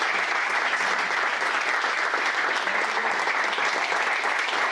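A room full of footballers applauding together, dense and steady clapping, in welcome of a new teammate.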